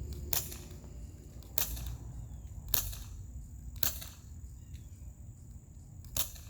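Novritsch SSX-23 spring-powered bolt-action airsoft rifle firing without its suppressor: five sharp cracks, four about a second apart and a fifth after a pause of two seconds or so.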